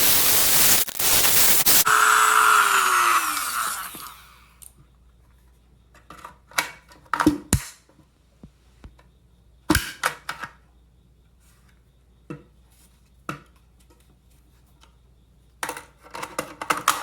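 A handheld power tool grinds metal off the AK's magazine-well insert for about two seconds, then winds down with a falling whine. Then come scattered sharp metallic clicks and clacks, with a cluster near the end.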